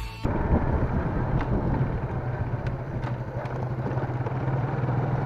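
Yamaha LC135 underbone motorcycle's single-cylinder engine running steadily while riding, with road and wind noise, just after rock music cuts off.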